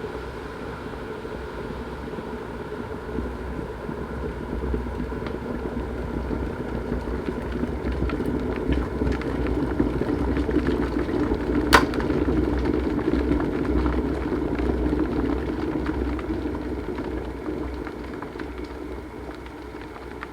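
Kettle boiling water: a rumbling, crackling boil that swells for several seconds and then dies away, with one sharp click near the middle.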